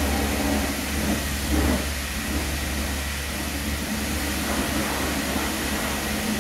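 Engine of a lifted UAZ off-road truck running steadily at a low idle, with an even hiss over it.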